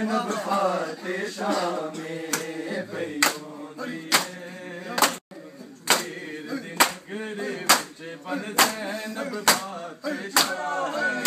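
Men's voices chanting a noha together. About two seconds in, a crowd of men joins in, striking their bare chests with open hands in unison (matam), roughly once a second.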